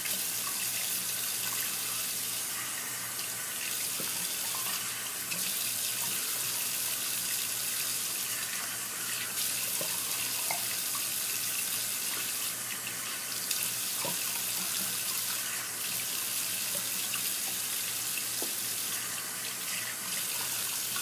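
Water running steadily from a sink tap, with a few faint knocks.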